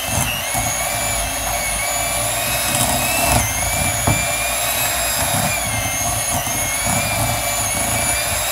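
Electric hand mixer running steadily at speed, its beaters whipping a thick, creamy mixture in a glass bowl, with a whining motor tone. Two sharp knocks come about three and four seconds in.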